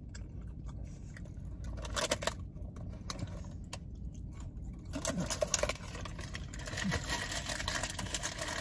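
A man biting and chewing breaded Burger King Fiery Buffalo chicken nuggets, close to the microphone: a burst of short sharp bite sounds about two seconds in and a longer stretch of chewing from about five seconds in.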